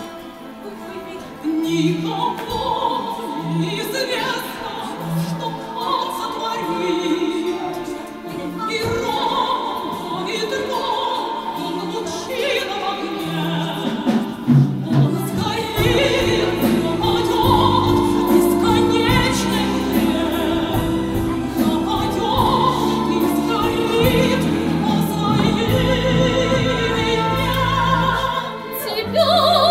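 Operatic singing with vibrato over an orchestral accompaniment; deeper bass notes join about halfway through.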